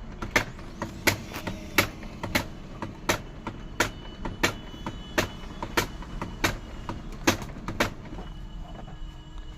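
Brother DCP laser printer's drive running at power-on, with a sharp gear click repeating about every 0.7 seconds over a steady motor hum. The knocking comes from a worn, broken gear on the toner unit, a fault that fitting a new toner cartridge cures.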